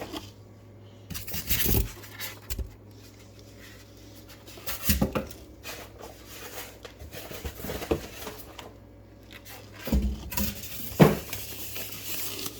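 Unboxing handling: the speaker and its packaging being moved about, with rustling and several knocks and light clatters, the sharpest about eleven seconds in.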